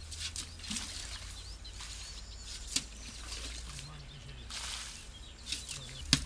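Water being scooped from an irrigation ditch with a long-handled scoop and thrown onto garden plants, splashing a few times. Small birds chirp throughout, over a steady low rumble.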